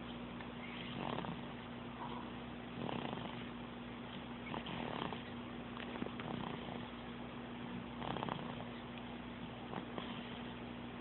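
Sleeping pet cat snoring and purring, a soft rasp with each breath, about every one and a half to two seconds.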